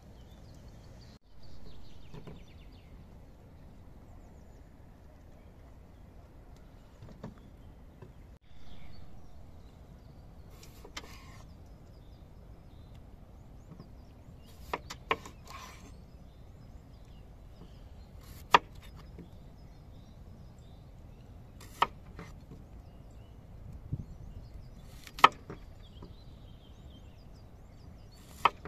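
A kitchen knife cutting potatoes on a wooden cutting board: a sharp knock each time the blade goes through and strikes the board, about every three seconds in the second half, over steady outdoor background noise.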